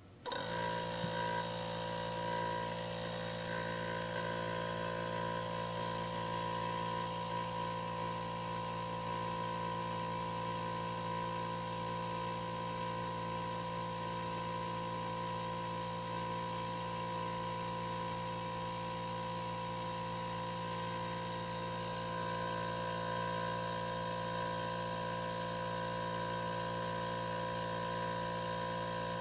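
Hermetic refrigerator compressor, rigged as a DIY air compressor, starting up and running with a steady low hum and a faint higher whine. It is quiet, reading only about 60 to 63 dB on a meter held right next to it.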